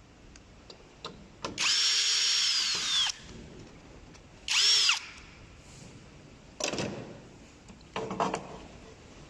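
Electric screwdriver or drill running twice, a run of about a second and a half and then a short burst, its motor whine falling in pitch as it winds down each time, undoing the screws that hold the heat pump's circuit board. A few light knocks and clatter follow.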